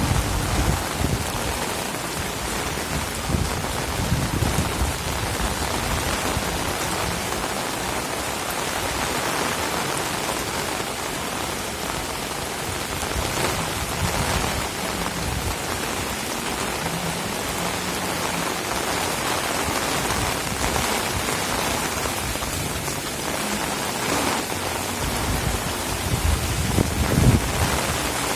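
Heavy rain falling steadily, a dense even hiss of drops on surfaces. A low rumble builds in the last few seconds.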